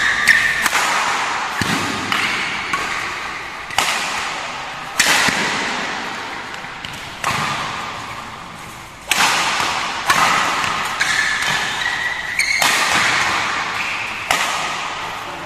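Badminton rally: rackets strike the shuttlecock about ten times at an uneven pace, each sharp smack echoing in a large hall, with short high squeaks of shoes on the court between hits.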